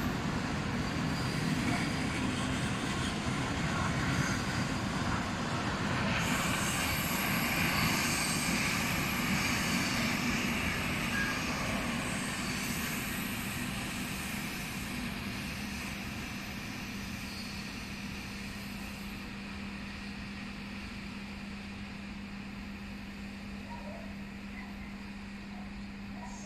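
Loaded open freight wagons rolling away over the rails, a steady rumble and rail hiss that fades slowly as the train recedes. A steady low hum stands out in the second half.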